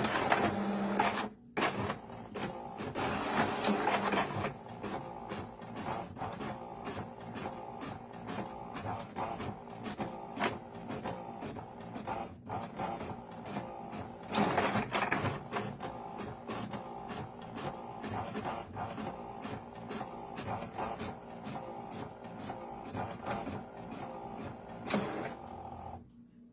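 HP DeskJet inkjet printer printing: the mechanism runs steadily under dense clicking from the paper feed and print head, with louder surges near the start, a few seconds in, around the middle and just before it stops near the end.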